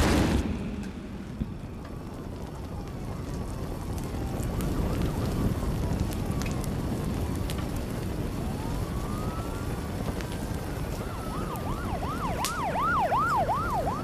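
A sudden loud bang at the start, then a steady rushing rumble. About eight seconds in, emergency-vehicle sirens rise in, first a slow wail and then, near the end, a fast yelp cycling about three times a second.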